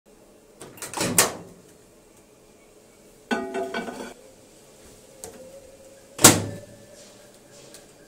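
Microwave oven door handled: clicks about a second in, a ringing rattle a little after three seconds, then a loud shut at about six seconds. A faint steady hum follows the shut.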